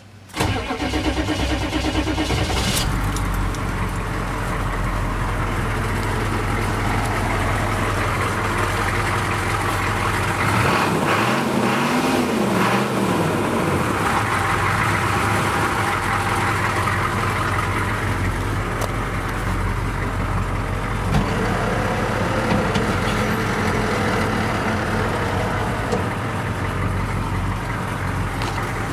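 GM 6.2-litre V8 diesel catching just as it starts and then idling steadily, revved up and back down once about eleven seconds in.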